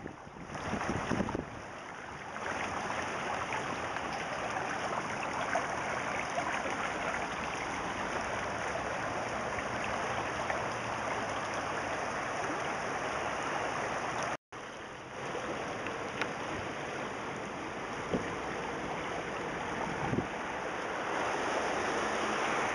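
Floodwater rushing steadily, a continuous even hiss of moving water, with a few louder surges in the first second and a half. The sound cuts out for a moment about two-thirds of the way through.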